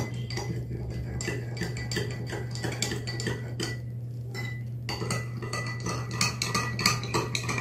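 Metal teaspoon stirring salt into a glass of water, clinking rapidly against the inside of the drinking glass, with a short lull about four seconds in.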